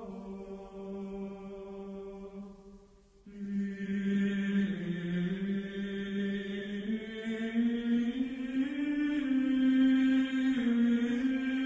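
Slow sacred chant: long held sung notes that move slowly from one pitch to the next, with a short break about three seconds in.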